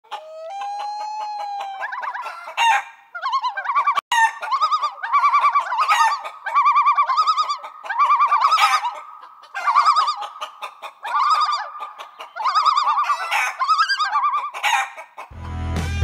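Chickens: one long crowing call, then a steady run of short clucking calls. Rock music with guitar comes in near the end.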